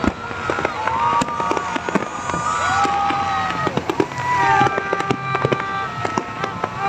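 Fireworks going off in rapid succession, a dense run of bangs and crackles, with gliding whistling tones mixed in.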